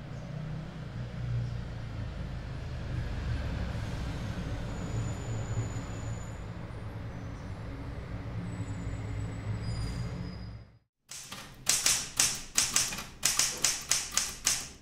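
A low steady drone, then about eleven seconds in a brief gap and a run of about a dozen quick, irregular clicks: typewriter keys being struck.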